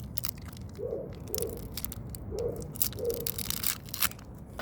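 Crinkling and clicking handling noise as pliers pick a sticky plug out of a tire plug repair kit. Behind it, a bird cooing in repeated pairs of low coos.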